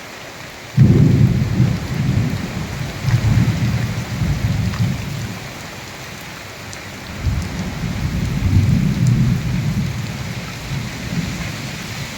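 Steady rain with thunder: a loud rumble breaks in suddenly about a second in and rolls on in waves, then a second rumble swells up about seven seconds in.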